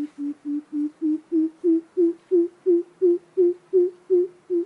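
Coucal (bìm bịp) giving its deep hooting call: an even series of about fifteen low hoots, roughly three a second. The hoots dip slightly in pitch at first, then rise a little and grow louder.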